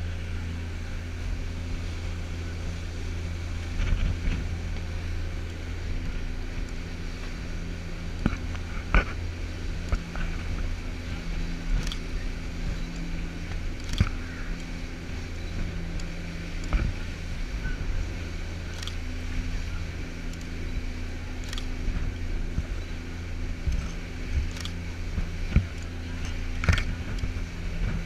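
Tour boat's engines running steadily at cruising speed, a low even drone, with the rush of the wake and wind. Scattered sharp clicks and knocks throughout.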